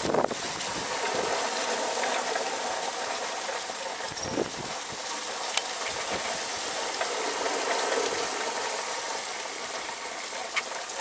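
Steady rushing hiss of thunderstorm rain and wind, with no words over it.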